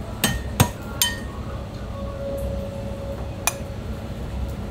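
Ceramic bowls and dishes clinking as they are handled on a stainless-steel counter: three quick clinks in the first second and one more about three and a half seconds in.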